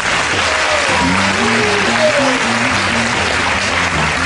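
Audience applauding and cheering, with a string of low, steady musical notes underneath.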